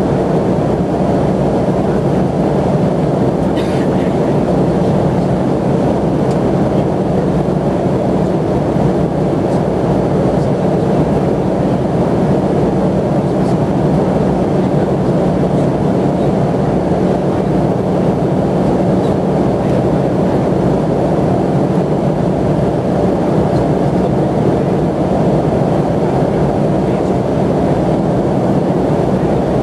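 Steady engine and airflow noise inside an airliner cabin in flight: a constant rush with a low hum and no change in level. A few faint clicks sound over it, the clearest about three and a half seconds in.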